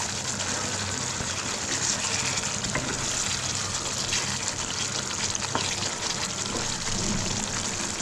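Beef liver curry sizzling steadily in the pan on the stove, with small scattered crackles.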